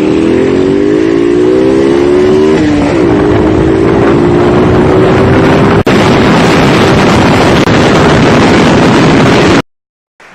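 A very loud, distorted engine running at high revs over heavy noise. Its pitch rises for about two and a half seconds, drops back, then holds steady, and the sound cuts off suddenly near the end.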